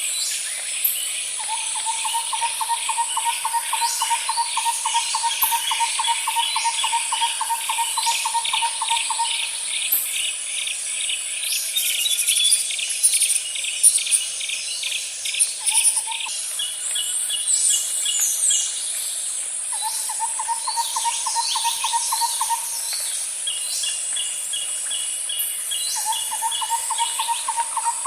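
Nature ambience of birds calling and chirping over a steady high-pitched insect drone. A low, rapid trill repeats several times, the longest lasting about eight seconds, while other calls come in quick pulsed runs and short chirps.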